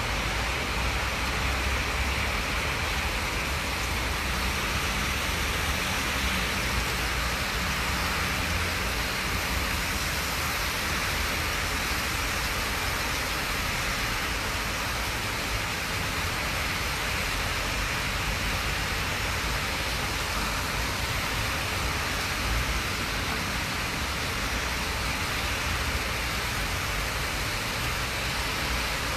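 Heavy storm rain pouring steadily, with a fluctuating low rumble of wind underneath.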